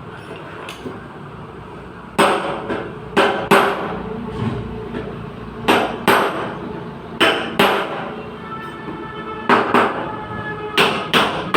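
Hammer striking the sheet-metal body panel of an accident-damaged Suzuki Alto during dent repair. The blows come in pairs of quick strikes about every second and a half, and some of them leave a short metallic ring. A steady low hum comes before the hammering starts, about two seconds in.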